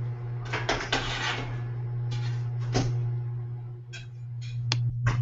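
Plate and utensils clattering as food is plated at the stove: a string of separate short clinks, knocks and scrapes over a steady low hum.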